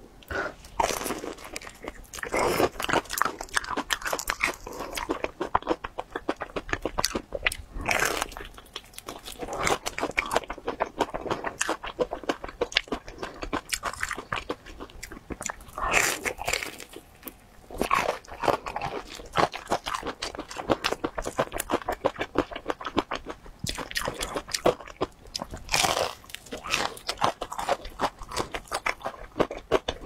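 Close-miked crunching and chewing of a breaded fried chicken cutlet dipped in sauce: several loud crunchy bites at irregular intervals over continuous crackly chewing.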